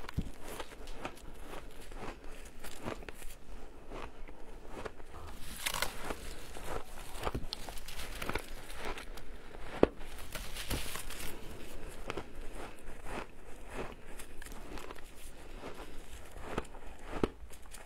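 Shaved ice crunching and crackling as it is bitten and chewed, a dense, continuous run of small cracks, with one louder crack about ten seconds in.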